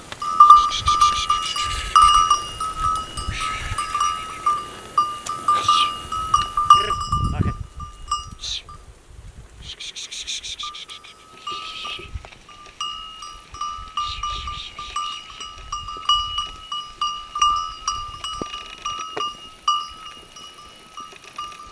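Bells worn by a flock of sheep clinking continuously as the animals move through scrub, with rustling from the flock. The bells stop briefly about eight seconds in.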